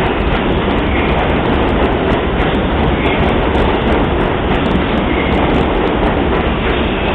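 New York City subway train running on the tracks through the station: a loud, steady rumble of wheels on rails that eases slightly near the end.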